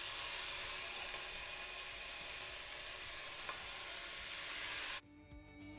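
Raw beef patties sizzling in hot oil on a grill pan as they are laid down, a steady frying hiss. The sizzle cuts off abruptly near the end.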